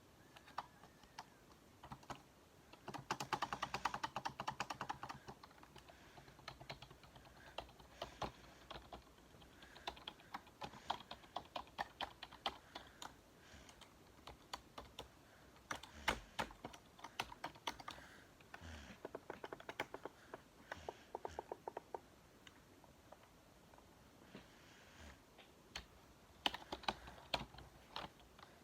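Typing on a Logitech keyboard: runs of quick key clicks broken by short pauses, with a dense fast flurry about three seconds in and another near the end.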